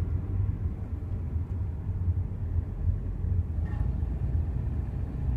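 Subaru Legacy driving slowly with a steady low rumble, and a faint, brief groaning noise a little past halfway through. The groan is an intermittent fault of unknown cause that comes on mostly when accelerating at slow speeds.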